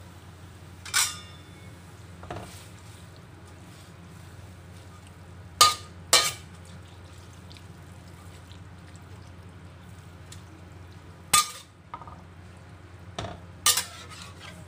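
Metal spoon clinking and knocking against a stainless steel wok as glass noodles are stirred in sauce: several separate sharp clinks, the loudest a pair about halfway through, over a steady low hum.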